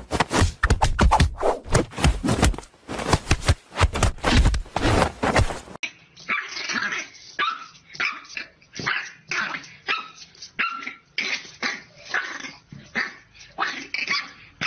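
Rapid wooden knocking and clattering as a cat bats at the pop-up pegs of a wooden whack-a-mole cat toy. About six seconds in it gives way to a French bulldog giving a series of short barks at its own reflection in a mirror.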